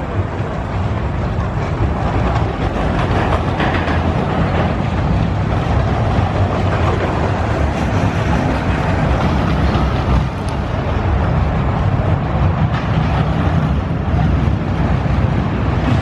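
Zamperla Windstorm steel roller coaster train running along its track, a steady loud rumble.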